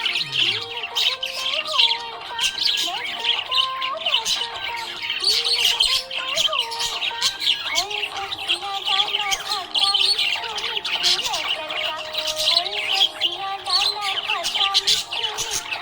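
Budgerigars chirping and chattering continuously, with rapid, busy high chirps and squawks, over a melodic music track.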